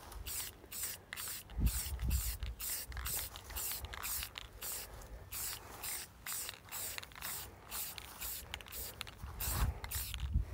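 Aerosol spray paint can sprayed in short, quick taps, giving a run of brief hisses at about three a second. A few low thumps sound between them, around two seconds in and again near the end.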